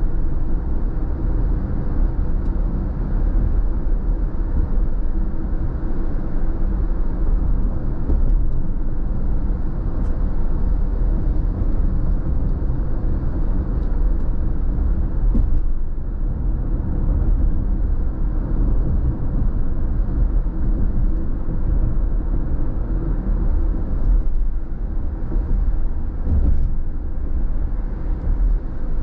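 Steady low rumble of road and engine noise inside a moving car's cabin, its level even throughout.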